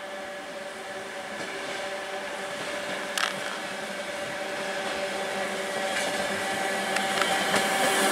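Train Jaune narrow-gauge electric railcar approaching on its track, a steady multi-tone hum and running noise growing steadily louder as it draws near. A few sharp clicks punctuate it, the strongest about three seconds in.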